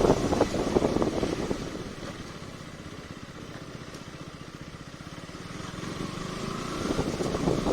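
KTM Duke 200's single-cylinder engine on the move: loud at first, easing off after about a second and a half to a low steady run, then building again near the end with a faint rising whine.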